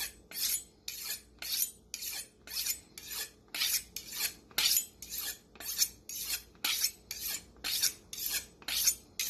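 Kitchen knife being sharpened: a steady run of short metal-on-abrasive scraping strokes, about two a second, as the blade is drawn flat along the sharpener and flipped from side to side.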